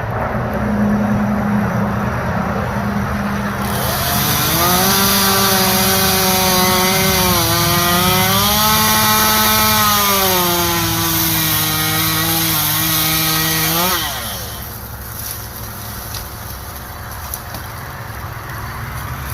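Chainsaw running, revved up about four seconds in and cutting a tree limb for about ten seconds, its pitch wavering as it works. About fourteen seconds in the revs drop away sharply to a lower, quieter running sound.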